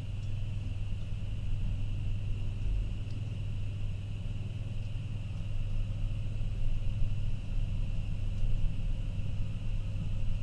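Lift car travelling between floors: a steady low rumble with a faint, steady high hum above it.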